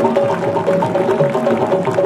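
Live West African percussion music from a Senegalese troupe: many drums playing a fast, dense, interlocking rhythm of short strokes.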